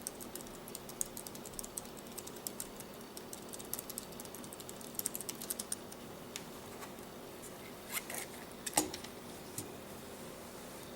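Typing on a Logitech K750 Solar wireless keyboard: a quick run of key clicks for about six seconds, then a few scattered key presses.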